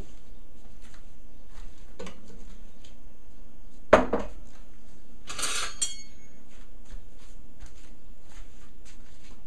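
Kitchen dishes and utensils clattering: a sharp knock about four seconds in, then a brief scrape that ends in a short metallic ring.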